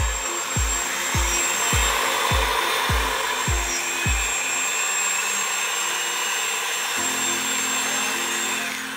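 LESU Aoue 850K 1/14-scale RC hydraulic bulldozer running as it pushes a toy car: a steady high whine with a grinding hiss from its electric drive and hydraulic pump. Background music runs underneath, its thumping beat stopping about halfway and a held low note coming in near the end.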